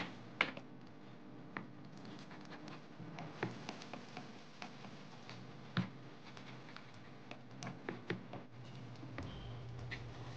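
Wooden spoon stirring a thick, creamy chicken and vegetable filling in a non-stick pan, giving scattered light clicks and knocks against the pan. A low steady hum sets in near the end.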